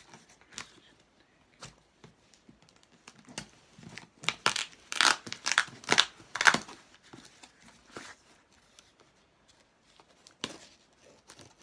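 A cardboard box being torn open by hand: its packing tape and flaps ripped in a quick run of strokes about four to seven seconds in, then scattered rustling of paper and card and one more rip near the end.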